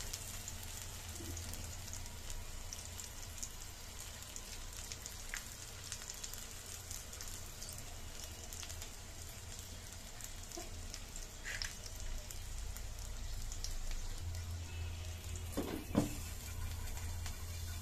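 Oil sizzling and crackling steadily under two Mughlai egg parathas shallow-frying in a pan. About two seconds before the end, a glass pan lid is set down on the pan with a sharp clink.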